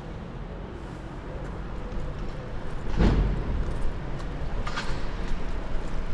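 Street traffic: a motor vehicle passing close by, its low rumble swelling from about two seconds in. A loud knock comes about three seconds in, and a shorter, sharper sound near five seconds.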